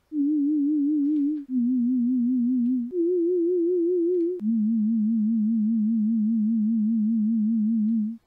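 A pure sine-wave tone from a homemade C++ software synthesizer plays four held notes one after another, stepping down, up, then down to a long last note. Each note wobbles in pitch about five times a second: a gentle vibrato made by low-amplitude 5 Hz frequency modulation of the oscillator.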